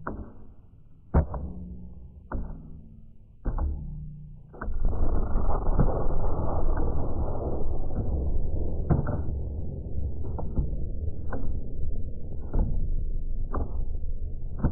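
Music track: a sharp, muffled percussive hit about once a second over low droning tones. About four and a half seconds in, a dense, noisy layer comes in beneath the hits.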